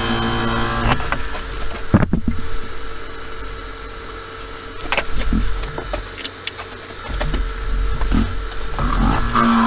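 Wood lathe running with a steady hum, a turning tool cutting the spinning wooden workpiece in short passes in the first second and again near the end. A sharp knock about two seconds in.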